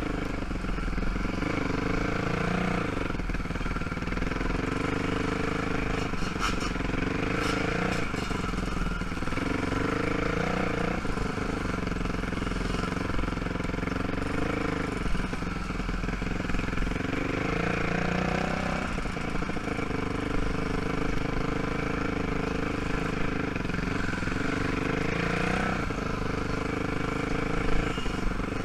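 ATV engine running at trail speed, its pitch rising and falling every few seconds as the throttle is opened and closed.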